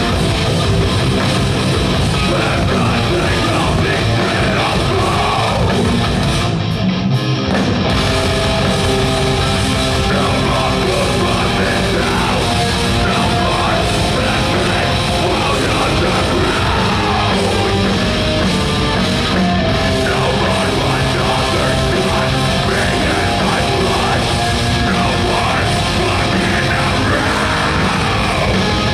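Heavy metal band playing live: distorted electric guitars, bass and drums, with shouted vocals over them. About seven seconds in, the cymbals and the low end drop out for about a second before the full band comes back.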